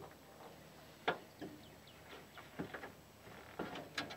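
Light clicks and knocks of hands working the hood latch and sheet-metal hood of a Chevrolet S10 pickup. There are about half a dozen separate strikes, the loudest near the end.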